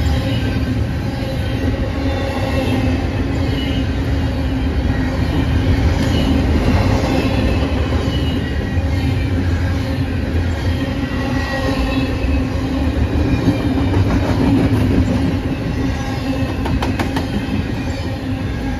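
Double-stack container freight train passing close by: a steady loud rumble of the cars rolling on the rails, with thin high wheel squeal drifting over it and a few sharp wheel clicks near the end.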